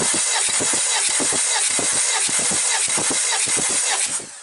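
Volvo D5244T4 2.4-litre five-cylinder turbodiesel cranked over on its starter during a compression test of the third cylinder: a loud steady whir with even compression pulses about five or six a second, stopping suddenly just before the end. The cylinder reads 26 kg/cm², below the first cylinder's 34.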